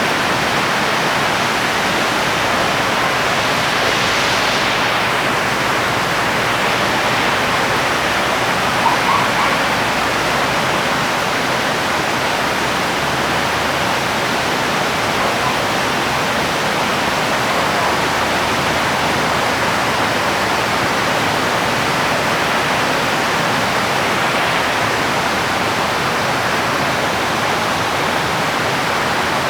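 Steady rain falling, an even dense hiss with no break, and a couple of brief ticks about nine seconds in.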